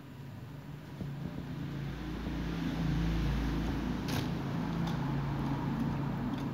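A steady low motor-like hum that builds up over the first two seconds and then holds, with one brief crackle about four seconds in.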